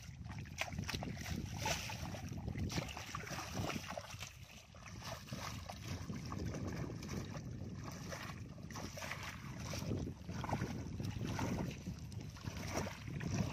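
Feet wading through shallow muddy water, with irregular sloshing as she steps, over wind rumbling on the microphone.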